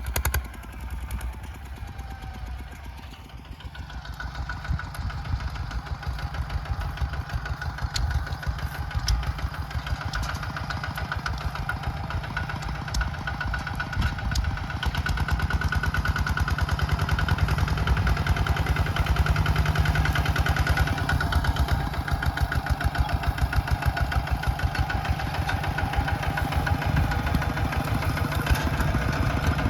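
Mini tractor engine running with a fast, even pulsing beat, growing louder a few seconds in and again about halfway through.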